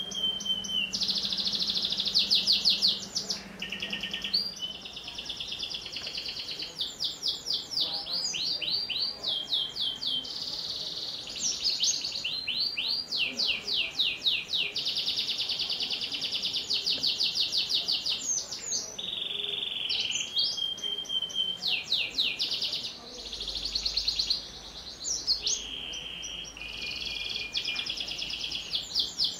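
A white domestic canary singing without a break: fast trills and rolls alternating with a few held whistled notes.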